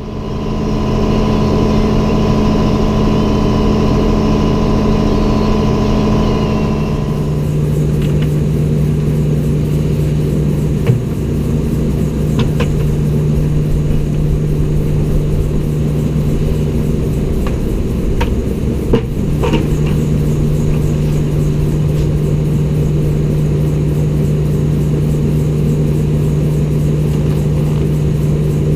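Feed grinder running with a steady engine drone while it grinds a batch of livestock feed. The level comes up in the first second, the hum settles to a lower, steadier tone about seven seconds in, and a few sharp clicks follow later.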